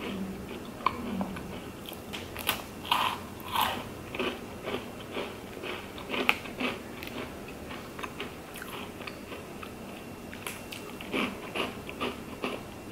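Close-up crunching and chewing of a crisp rice cookie, in irregular crackly bites, with busier spells about three seconds in, six seconds in and again near the end.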